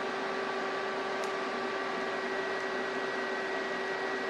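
TIG welding arc on a steel fuselage tube joint: a steady hiss with a constant hum, holding even as the bead is laid.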